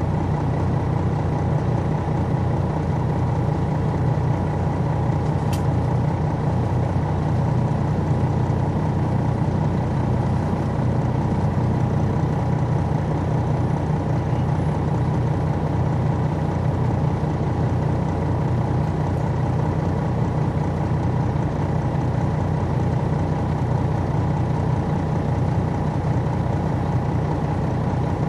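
The Detroit Diesel Series 60 inline-six diesel of a 2002 MCI D4000 coach running at a steady, unchanging speed, heard from inside the bus with a deep drone. One brief click sounds about five and a half seconds in.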